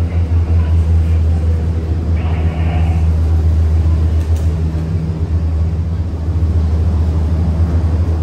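Steady low rumble inside a moving cable-car gondola cabin as it travels along the cableway.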